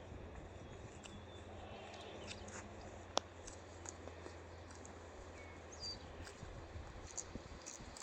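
Quiet outdoor pasture ambience: a steady low rumble with scattered faint bird chirps, and one sharp click about three seconds in.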